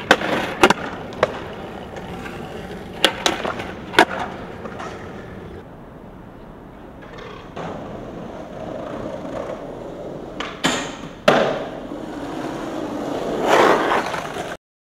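Skateboards on concrete: sharp cracks of the board's tail popping and the wheels landing, with the wheels rolling on rough pavement between tricks. A cluster of cracks comes at the start, two more a second apart about three seconds in, and a pair near eleven seconds. The rolling grows louder just before the sound cuts off abruptly.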